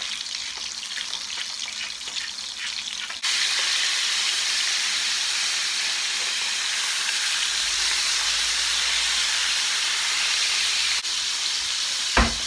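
Panga fillets frying in hot oil in a nonstick pan. A light crackling sizzle jumps suddenly, about three seconds in, to a loud steady hiss as the fillets are turned onto their unfried side. A short knock comes near the end.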